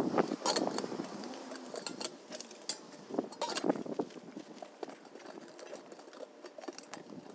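Irregular light knocks and metallic clinks of metal parts being handled, a few sharper strikes scattered through.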